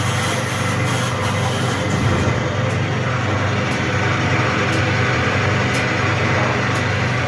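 Automatic soap-making mixer running: a steady motor hum with mechanical noise, and a light tick about once a second.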